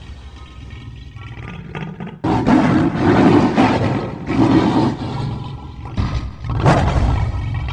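Monster roar and growl sound effects: a low, rough growl, then from about two seconds in a run of loud, harsh roars, one after another.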